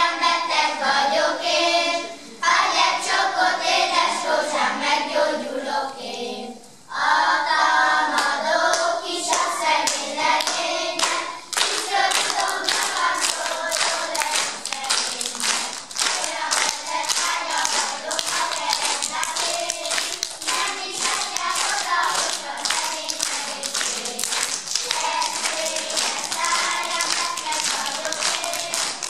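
A children's choir singing a folk song, with two brief breaks in the phrase, ending about eleven seconds in; then audience applause, a dense steady clapping, to the end.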